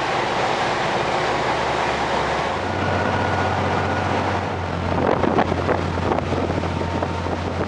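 Cabo 45 Express sportfishing yacht running at speed: a steady low drone from its inboard diesel engines, mixed with rushing wind and water. The engine note shifts slightly about two and a half seconds in, and gusts of wind buffet the microphone around five to six seconds in.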